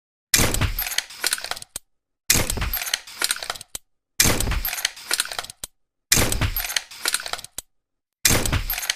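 Tranquilizer pistol sound effect: a sharp shot followed by a short run of clicks, played five times about every two seconds with dead silence between.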